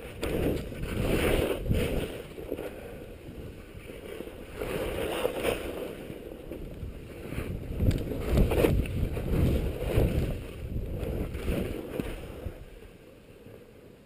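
Skis scraping and hissing over packed snow through a series of turns, the noise rising and falling with each turn. It fades away near the end.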